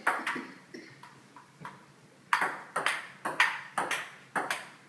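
Ping pong ball clicking against paddles and a dining table top: a few lighter taps in the first second and a half, then a quick rally of sharp clicks from a little past two seconds in.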